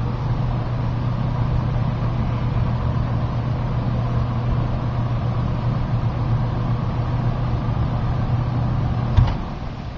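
Lakewood P-222 box fan running on low speed, heard from right behind its motor: a steady electric motor hum over the rush of air. About nine seconds in a sharp click and the hum stops as the fan is switched off.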